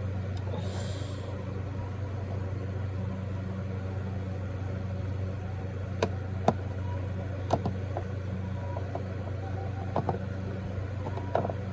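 Steady low hum of an RV air conditioner running, with a short hiss just after the start and a few light clicks and knocks.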